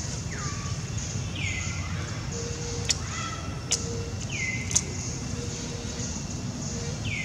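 Four high-pitched animal calls, each sliding down in pitch and ending on a short held note, spaced a second or more apart over a steady hiss, with three sharp clicks in the middle.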